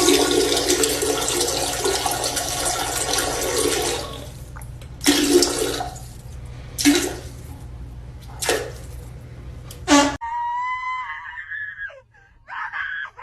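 Rushing water for about four seconds, then four short gushes about a second and a half apart. Near the end comes a brief wavering high-pitched sound.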